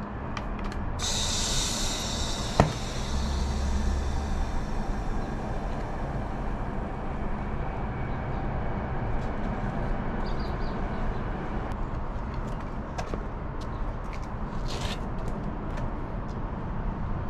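A short burst of hissing compressed air from a homemade pump-sprayer air tank about a second in, followed by a sharp click, over steady low background noise.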